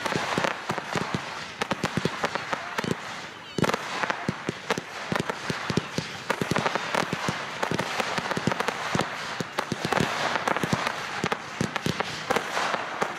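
Fireworks display firing rapidly: many close-spaced pops and crackles over a steady hiss, with one sharper bang about three and a half seconds in.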